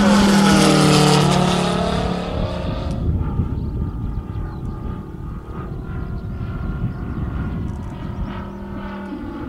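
A 1/3-scale radio-controlled Mitsubishi A6M Zero model's engine and propeller are loud as the plane passes close overhead. The pitch drops as it goes by, and about three seconds in it fades to a distant drone as the plane flies off.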